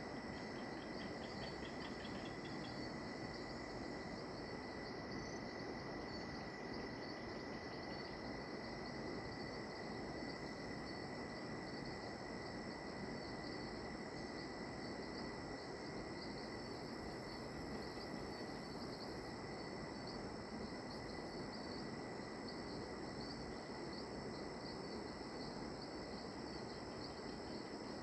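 Rainforest insect chorus at dusk: several steady high trills at different pitches, with pulsing chirps near the start and end and a brief higher buzz twice, over a steady low hiss.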